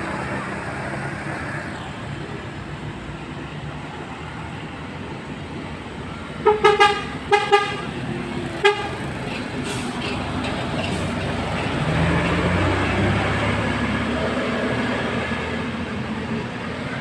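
Steady road and engine noise with a bus air horn of the Basuri trumpet type sounding a quick run of about five short toots just before halfway, then one more brief toot a second later. The engine rumble grows a little louder in the second half.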